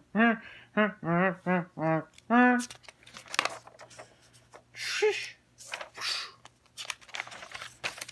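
A voice making a quick run of short pitched syllables, then lined notebook paper being handled: pages rustling and shifting, with small clicks and two louder hissing rustles about five and six seconds in.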